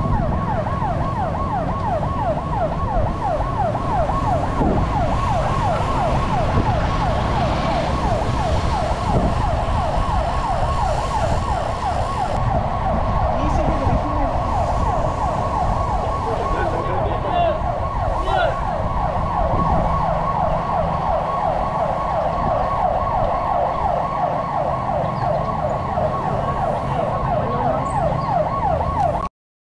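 An electronic siren sounding a fast, repeating yelp over a low rumble of wind and road noise. It stops abruptly near the end.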